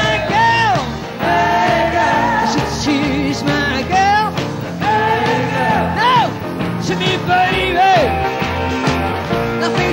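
Live rock band recording: a full band playing, with a lead melody of held notes that bend up and down over the bass and drums.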